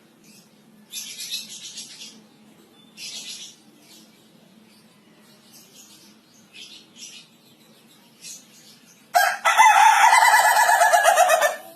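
A rooster crows once near the end, a loud drawn-out call of about two and a half seconds that dips slightly at its close. Earlier come two brief bursts of hissy scuffing noise.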